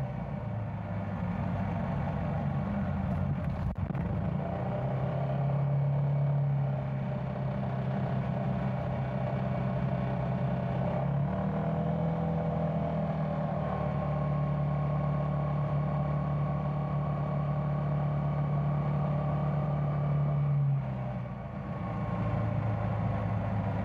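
Yamaha Tricity 300 three-wheeled scooter's single-cylinder engine running steadily under way, heard from the rider's seat: a steady drone that shifts up and down in pitch a few times, dipping briefly in level near the end.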